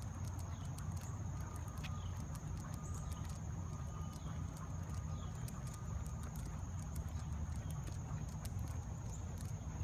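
Footsteps of a man and two dogs walking on an asphalt path: light, irregular taps over a steady low rumble. A thin, steady high-pitched drone sits over it, with a few faint chirps.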